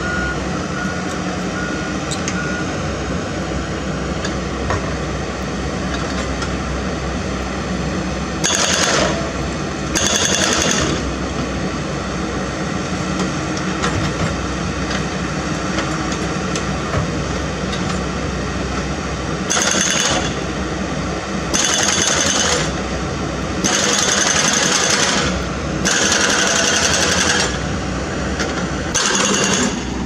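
Komatsu PC78US mini excavator's engine running under load while its Everdigm EHB06 hydraulic breaker chisel hammers on rock. The loudest parts are several separate hammering runs of about a second each, starting about a quarter of the way in and coming more often toward the end.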